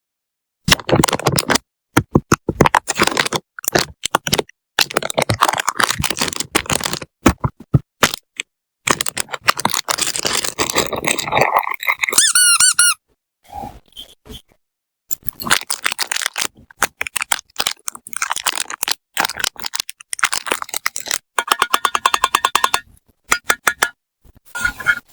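Packing sounds: stationery and wrapping handled close to the microphone, with rapid clicks, crinkling and rustling, broken by short pauses. A wavering high squeak comes about halfway through, and more squeaking near the end.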